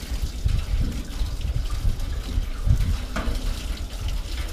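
Water from a hose spraying into the sending-unit hole of a removed motorhome fuel tank, gushing and splashing unevenly inside it as the tank is flushed of grit.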